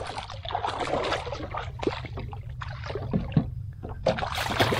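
A hooked redfish splashing and thrashing at the surface beside a paddleboard, in a rapid irregular run of splashes, with a couple of dull knocks about three seconds in and a steady low rumble underneath.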